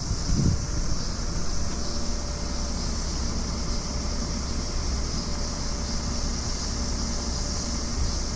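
Steady outdoor background noise: a low rumble with a constant high-pitched hiss above it, and a brief low thump about half a second in.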